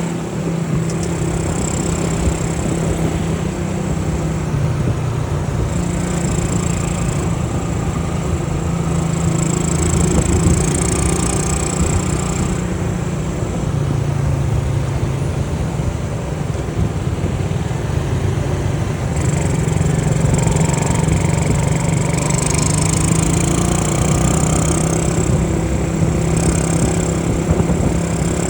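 Honda C70 motorcycle's small four-stroke single-cylinder engine running under way, its note dropping and rising again several times as the throttle and gears change.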